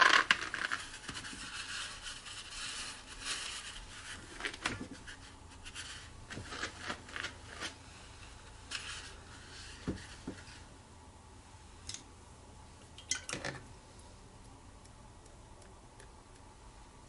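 Paper towel rustling and crinkling as it is rolled and pressed over a wet watercolour painting, blotting up water drops to lift speckles of paint. It is loudest in the first second, then thins to scattered rubbing, with a few short sharp taps in the second half.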